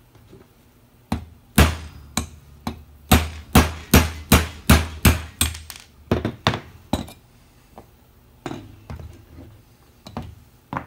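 Ball-peen hammer striking a steel pin punch in a quick run of sharp metallic blows, about a dozen at two to three a second, driving the pin out of an AK-47's rear sight block. A few lighter knocks follow near the end.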